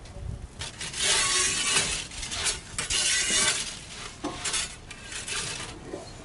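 Metal pizza peel scraping and clinking on the oven's stone floor as a pizza is slid and turned, in several rough strokes, the longest about a second in and about three seconds in.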